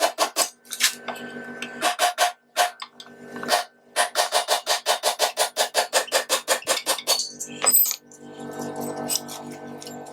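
Rapid metallic clicking at about seven strikes a second, in bursts that stop and start, from a hand tool working fasteners on a compaction roller's drum mount. A steady hum with several tones comes in for the last two seconds.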